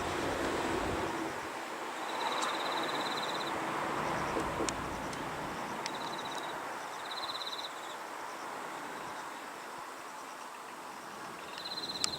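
Insect trills: four short buzzing bursts of rapid high pulses, over a steady outdoor hiss that slowly fades, with a low hum dying away in the first second.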